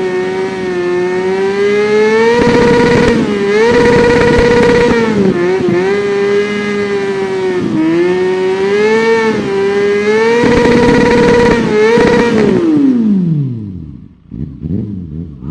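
Kawasaki Ninja 400's parallel-twin engine revved over and over, its pitch climbing and holding high several times with short dips between. About twelve seconds in the revs fall away and the sound drops sharply in level.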